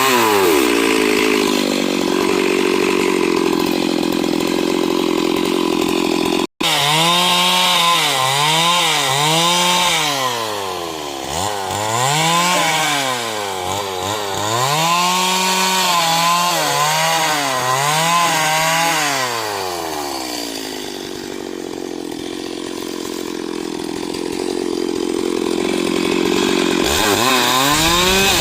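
Stihl MS 382 two-stroke chainsaw cutting wood, its engine speed dipping and climbing again over and over as the chain bites and frees. There is a momentary break in the sound about a quarter of the way in.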